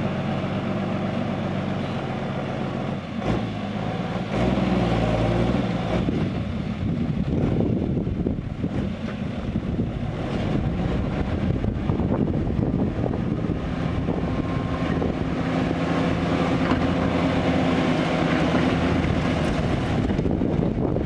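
Diesel engine of an old Isuzu six-wheel dump truck running steadily, its note shifting about four seconds in and held steady in the latter half while the hydraulic hoist raises the loaded bed to tip out the soil.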